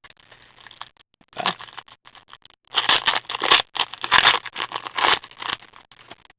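Foil trading-card pack wrapper being torn open and crinkled by hand: irregular scratchy rustling and crackling, loudest in the middle.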